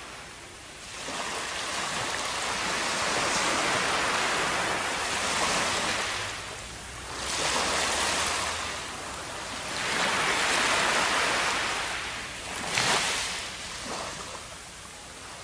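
Ocean waves washing up a sandy beach: a rushing wash of surf that swells and recedes about four times, the loudest wash near the end.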